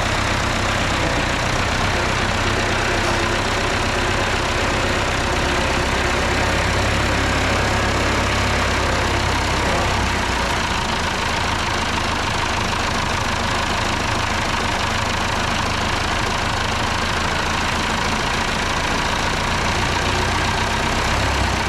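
Massey Ferguson 65 X tractor's diesel engine running steadily. Its deep low hum eases about halfway through.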